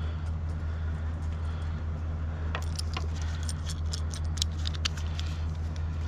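Metal hardware clinking and jangling in a quick run of sharp clicks through the middle, as gloved hands work the cable cart's fittings on the aerial strand. A steady low hum, like an idling engine, runs underneath.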